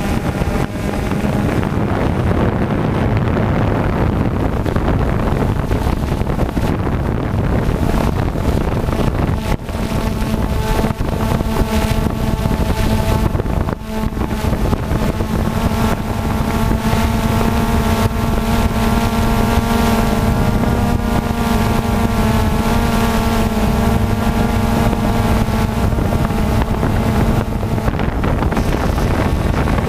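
Quadcopter's electric motors and propellers buzzing steadily, recorded from the GoPro slung beneath it, with wind rushing over the microphone. From about halfway through the hum holds one steady pitch, with a stack of higher whining tones above it.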